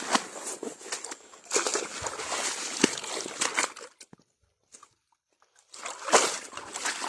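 Shallow water sloshing and splashing as an eel trap is hauled up and handled, with a few sharp knocks; the sound breaks off for about two seconds midway, then the splashing resumes.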